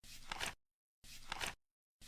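Flip clock's seconds card flapping over once a second, each flip a short rustle ending in sharp clicks; two flips, one at the start and one about a second in.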